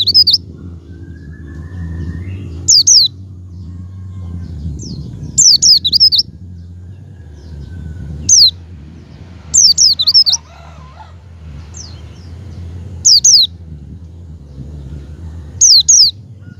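White-eye (pleci) calling: short, high, loud clusters of two or three quick down-slurred notes, repeated about every two to three seconds, over a steady low rumble.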